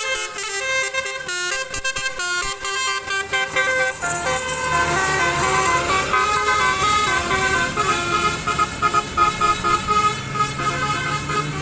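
Basuri V1 telolet horn, a multi-note musical vehicle horn, playing a tune. The first few seconds are quick, short notes, followed by longer held notes. A low steady hum comes in near the end.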